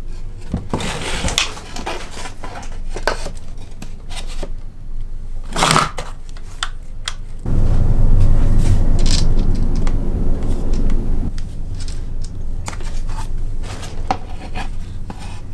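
Clicks and knocks of a wooden chainsaw bar and its parts being handled and fitted, with a steady low running sound for about four seconds in the middle, the loudest part.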